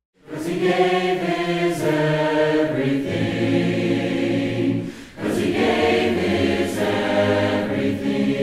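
Choir singing in harmony on long held notes, starting abruptly, with a short break between phrases about five seconds in.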